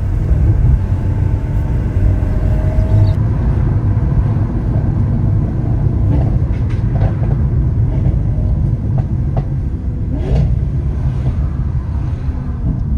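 Lamborghini Aventador SV Roadster's naturally aspirated V12 running at a steady cruise, under a heavy low rumble of road and wind noise, with a few short pops around the middle.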